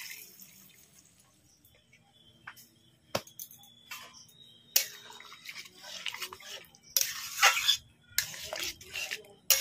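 Boiled chana dal sliding out of a pressure cooker into a metal kadai, fading within the first second. A single sharp knock comes a little after three seconds. From about five seconds in, a metal spatula scrapes and stirs in the kadai in irregular strokes, strongest near the end.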